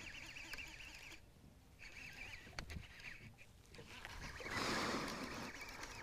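Fishing reel being cranked against a hooked fish in two short spells, a rapid fine clicking that stops for about half a second after the first second and ends about three seconds in. A louder brief rush of noise follows about four and a half seconds in.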